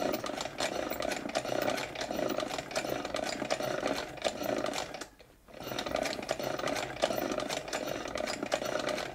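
Vulcan toy chain-stitch sewing machine running, a steady rapid mechanical clatter as the needle bar goes up and down sewing a test seam, stopping briefly about halfway through and then starting again. The machine is forming stitches and feeding the fabric correctly.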